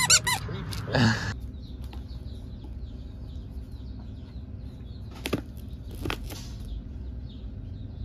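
A plush duck squeaky toy squeezed in quick succession right at the start, a few rapid squeaks. About a second in comes a short rustling burst, and then only faint background with a couple of light clicks.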